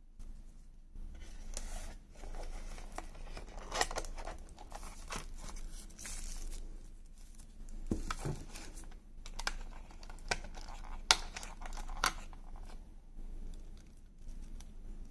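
Paper and thin plastic phone packaging rustling and crinkling as it is handled and lifted from the box, with a few sharp clicks, the loudest near the middle and about two-thirds of the way through.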